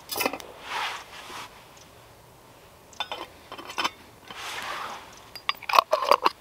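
Clinks and taps of a metal camping mug and its lid being handled, the lid set down on the mug, with soft rustling in between. A quick run of small clicks near the end.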